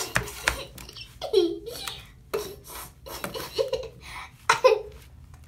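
Sticky pink slime squelching and crackling as a doll is pressed into it and pulled back out, with short bursts of a person laughing in between.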